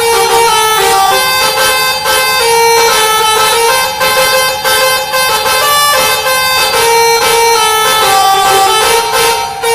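Basuri 'telolet' melody horn on a truck playing a tune: a long held high note over shorter alternating lower notes, with a steady beat under it. The held note sags a little in pitch near the end.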